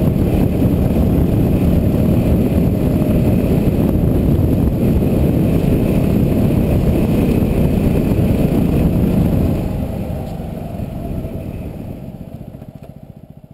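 Yamaha WR250R motorcycle's single-cylinder engine running steadily, its firing pulses close together; the sound fades out over the last few seconds.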